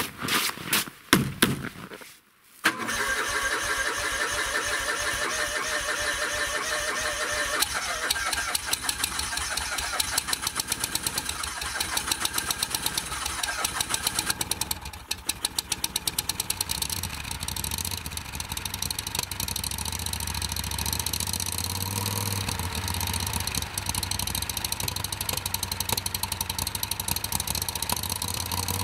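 A few short knocks and scrapes, then about two and a half seconds in the SM-002 snowmobile's Loncin 30 hp V-twin four-stroke engine starts from cold and runs steadily; about twenty seconds in its note settles lower.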